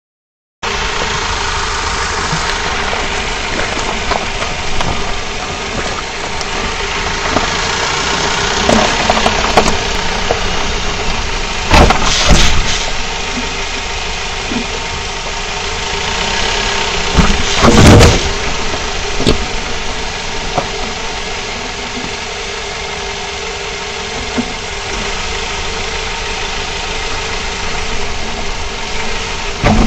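Mazda5 driving slowly, with steady road and engine noise. Loud noises from the front suspension come about 12 and 18 seconds in as the car goes over speed bumps. This is the front squeak the owner suspects comes from an inner tie rod or ball joint, with the strut already replaced.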